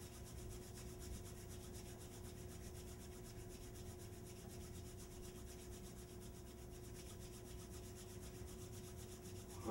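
Faint steady room tone: a low hum with a thin steady tone and light hiss, with no distinct events.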